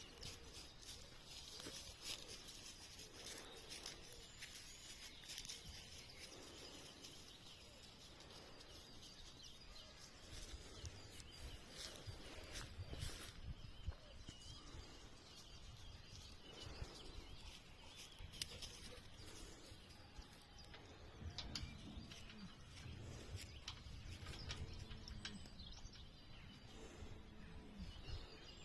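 Faint countryside ambience: small birds chirping here and there over a low rumble, which grows stronger in the second half.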